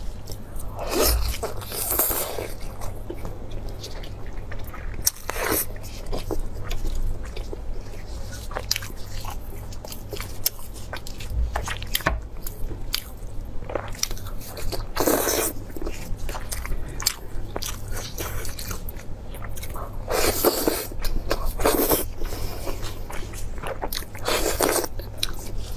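Close-miked eating of saucy braised mutton ribs on the bone: the meat is pulled apart by hand, then bitten and chewed. Many small clicks, with a handful of louder bites.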